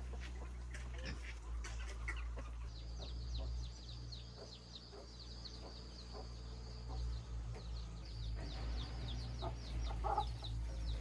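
Chickens clucking on a farm against a steady low rumble. From about three seconds in, a high, fast chirping runs on throughout.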